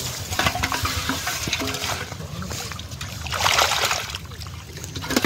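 Hands scooping and splashing in shallow muddy water, with small crackles throughout and a louder burst of splashing about three and a half seconds in.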